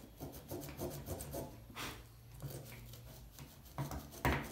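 Rubbing and scraping as a corroded PCM harness connector is cleaned by hand, its wires shifting against the bench, with a louder scrape about two seconds in and another near the end.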